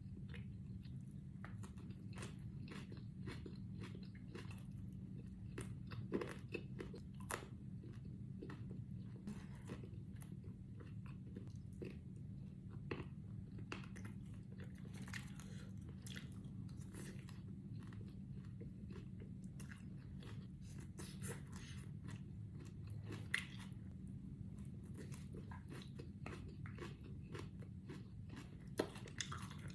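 A person chewing and biting food, with scattered crisp crunches and small mouth clicks throughout, over a steady low hum.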